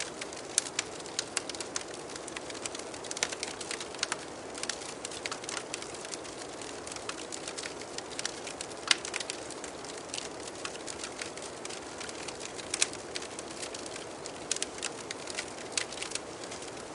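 Wood fire crackling, with irregular sharp pops and snaps over a steady soft rushing of flame.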